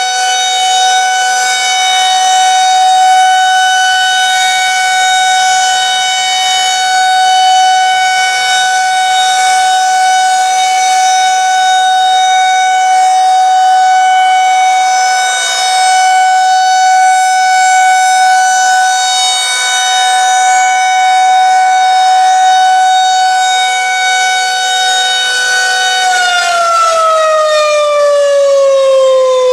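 Federal Signal 2001-130 outdoor warning siren sounding a steady tone for its monthly test, rising and falling a little in loudness. About 26 seconds in it starts to wind down, its pitch falling.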